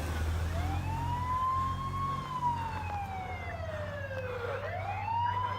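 Fire truck siren in a slow wail: it rises, holds, falls over a couple of seconds and rises again near the end, over the steady low rumble of the truck's engine.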